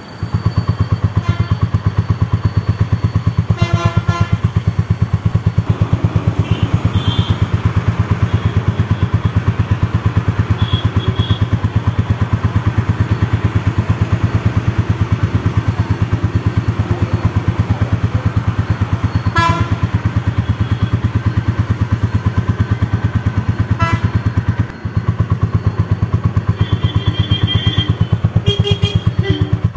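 Royal Enfield motorcycle engine idling with a steady, even thump, dropping out for a moment near the end.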